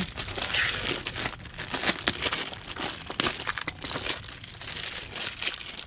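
Close handling noise as a new motorcycle drive chain is handled: irregular crinkling with many sharp small clicks.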